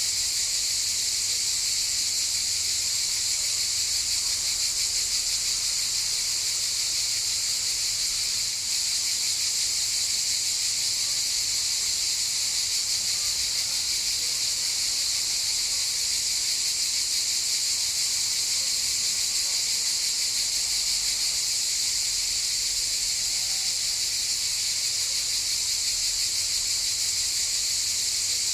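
Cicadas in chorus: a steady, dense high-pitched buzz that goes on without a break.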